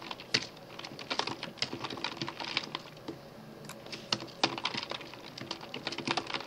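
Typing on a computer keyboard: irregular runs of key clicks separated by short pauses.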